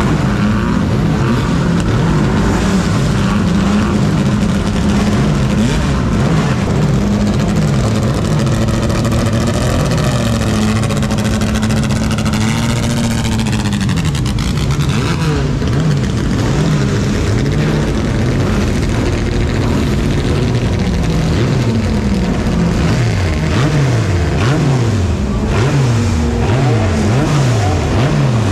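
Historic Formula racing car engines revving hard and shifting up through the gears, the pitch climbing and dropping again at each shift. About halfway through, a car passes close by and its sound sweeps down in pitch.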